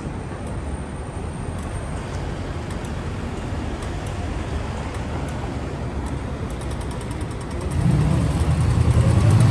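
City street traffic: vehicles driving past with steady road noise. About 8 s in, a heavier engine grows louder as a truck passes close by.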